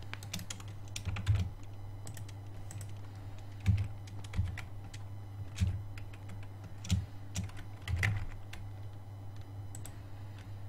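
Scattered keystrokes and clicks on a computer keyboard, with about half a dozen louder key presses, over a steady low hum.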